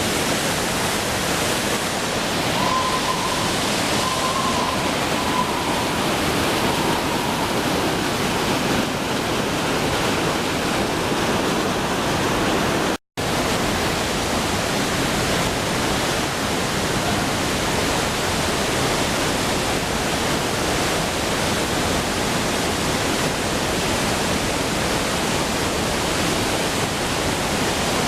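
Waterfall: a steady, loud rush of falling water. The sound drops out for a split second about halfway through.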